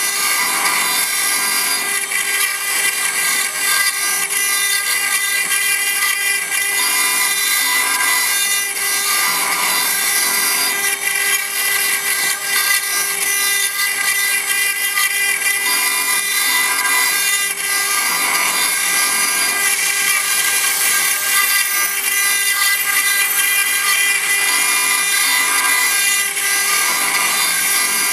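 A 4-axis CNC router's spindle running while its cutter engraves stone: a steady high whine over a rough grinding cutting noise that swells and fades every few seconds as the tool moves.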